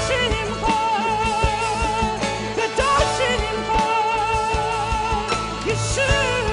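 A worship band playing live while a woman sings the lead, holding long notes with vibrato over electric guitar and bass, with a steady beat.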